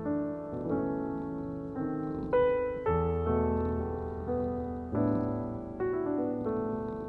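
Slow background piano music: single notes and chords struck about once a second, each left to ring and fade.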